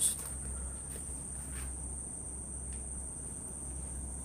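Crickets singing in one steady, high, unbroken trill, over a low hum, with a short knock right at the start.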